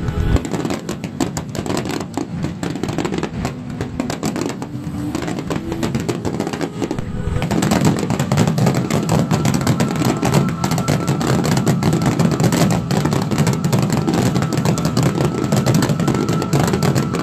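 Fireworks finale barrage: many shells bursting in quick succession, a continuous rumble of explosions with crackling. It grows louder and denser about seven seconds in.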